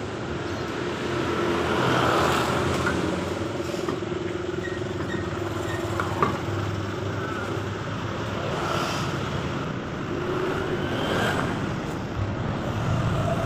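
Steady road-traffic noise, with vehicles swelling past now and then, and a low hum under it for the first half. A sharp click sounds about six seconds in.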